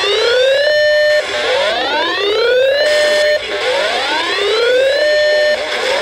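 Electronic alert siren from a scanner/weather radio's speaker: a wailing tone that rises in pitch, holds briefly and cuts off, repeating about every two seconds, sounding a weather alert.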